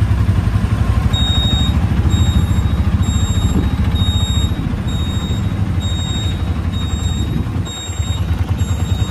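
Auto-rickshaw's small engine running with a fast low throb, heard from inside the passenger compartment, easing off briefly near the end. From about a second in, a high electronic beep repeats about once a second.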